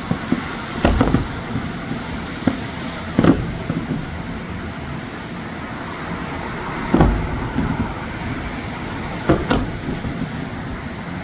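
Fireworks bursting: a string of sharp bangs at irregular intervals, the strongest about three seconds in and about seven seconds in, over a steady background rumble.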